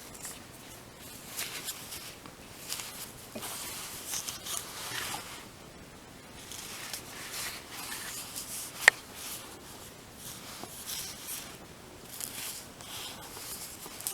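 Fabric of a tote bag rustling and rubbing in short irregular spells as it is handled, with one sharp click about nine seconds in.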